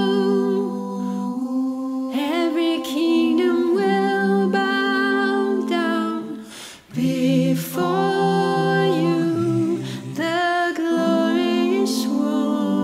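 Worship song being sung: long held notes with vibrato over sustained chords that change every second or two, with a short break about two-thirds of the way through.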